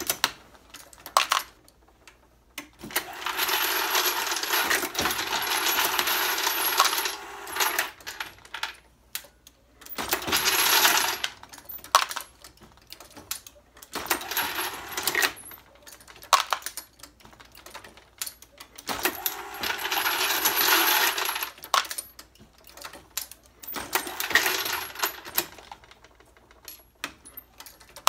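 Hornady Lock-N-Load AP progressive press loading 9mm rounds: sharp metallic clicks and clinks of brass cases and the press cycling. About five times, the case feeder switches on for a few seconds, its hopper of brass cases rattling over a steady motor hum.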